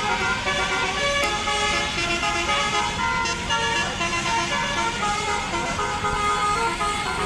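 Bus's Basuri 'telolet' multi-tone musical horn playing a run of notes, several tones at once that change pitch every fraction of a second, over the low rumble of the bus's engine.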